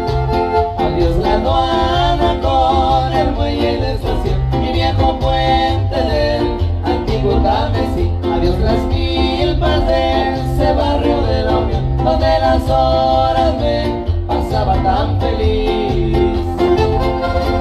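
Live son huasteco (huapango) by a trio: a violin melody over the strummed huapanguera and jarana huasteca, in a steady rhythm.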